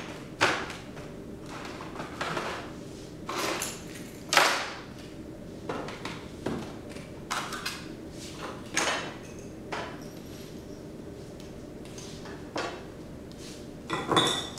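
Irregular short knocks, clatters and brief scraping sounds of objects being handled and moved, about a dozen spread unevenly over a steady room hum, the loudest about four seconds in.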